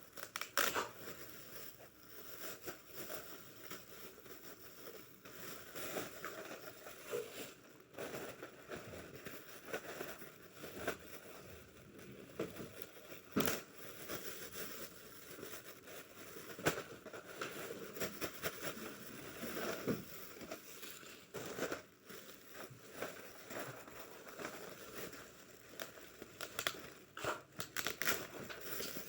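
Parcel packaging being handled and opened by hand: irregular crinkling and rustling with scattered sharp clicks.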